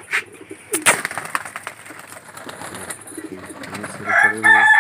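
Pigeons cooing in a loft, with a sharp clatter just before a second in. Near the end a rooster starts to crow loudly over them.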